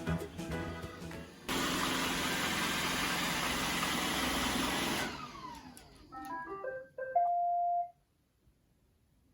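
Roomba robot vacuum running with a steady rushing noise, then its motor winding down with a falling whine about five seconds in. A short run of electronic beeps follows, ending in one held tone. Background music fades out at the start.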